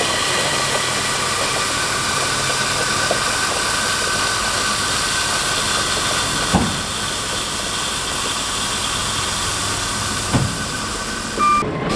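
Kenworth T880 triaxle dump truck's diesel engine running slowly with the bed raised while crushed limestone spills out of the partly open tailgate, a steady hiss. Two short knocks about six and a half and ten seconds in.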